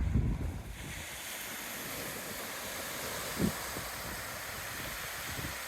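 Ocean surf with wind buffeting the microphone, a steady rushing noise, with a loud low rumble at the very start and a brief low bump about three and a half seconds in.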